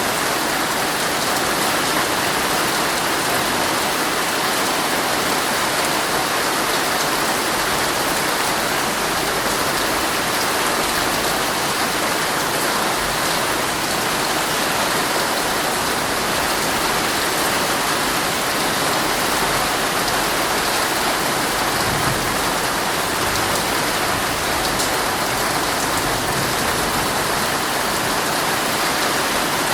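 Heavy rain falling steadily on a tent, a dense even hiss with now and then a sharper single drop.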